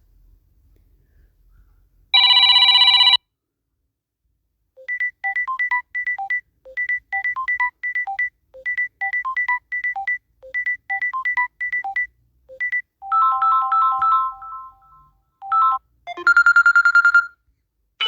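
Built-in Samsung Galaxy A21s ringtones playing one after another. A short buzzy electronic chord comes about two seconds in. Next is a quick beeping melody of short synthetic notes that repeats its phrase several times, then a few held tones, then a brief rising tone near the end.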